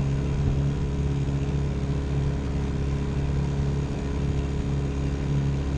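Fishing boat's motor running steadily at low speed while it tows a disabled jet ski on a line.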